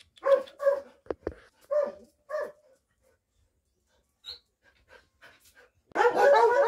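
Dog calling: a few short, pitched whining yelps in the first couple of seconds, then a loud run of barks with a wavering pitch near the end.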